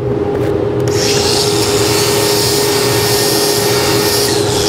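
Angle grinder with a thin cutoff wheel grinding the end of a steel weld test plate. The wheel bites into the steel about a second in with a steady, grating hiss that stops near the end.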